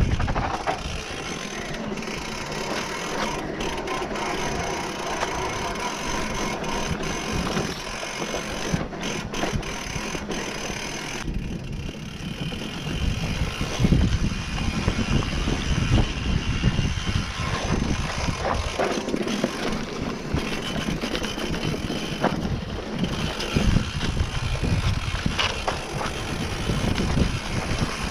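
Mountain bike riding over a dirt singletrack: tyres rolling over the rough trail, with the chain and frame rattling and knocking irregularly over the bumps.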